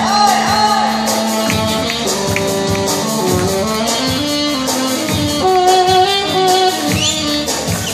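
Live band dance music: a stepping melody line over a steady beat.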